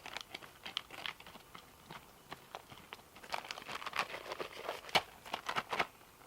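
Crinkling and rustling of a food packet being handled: a run of irregular short crackles, busiest in the second half.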